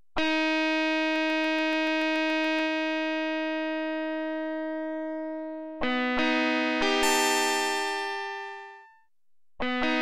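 Sampled overdriven electric guitar notes played from a Korg M3 software plugin. One note rings and slowly fades for about five and a half seconds, with a quick run of faint clicks early in it. A few notes start together about six seconds in and die away by about nine seconds, and new notes begin near the end.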